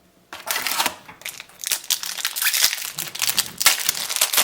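Trading-card booster pack wrapper being torn open and crumpled: a dense, crackling crinkle that starts about a third of a second in.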